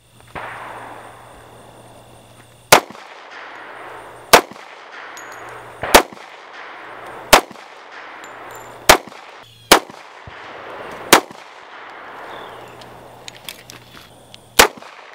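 Dan Wesson ECO compact 1911 pistol in .45 ACP being fired at a slow, steady pace: about eight single shots, roughly one every second and a half.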